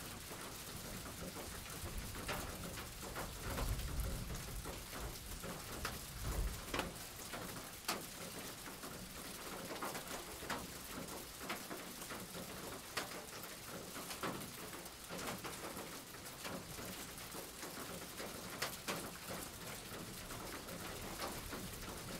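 Steady rain falling, with individual drops striking a surface as sharp ticks, and a low rumble during the first several seconds.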